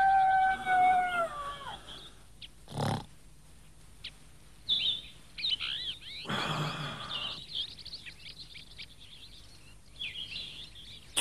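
A rooster crowing, one long call that holds its pitch and then falls away, followed by small birds chirping. A short thump comes between them, and a rush of noise about six seconds in.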